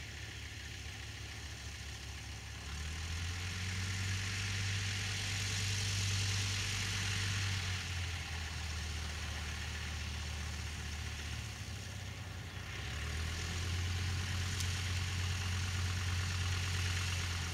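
Fleet Model 7 biplane's radial engine running at low power as the plane taxis, with a steady low drone. It grows louder about three seconds in, eases off around twelve seconds, and grows louder again a second later as the throttle is opened.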